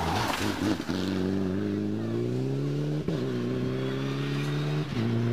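Rally car engine accelerating hard, its pitch climbing through each gear with quick upshifts about three and five seconds in.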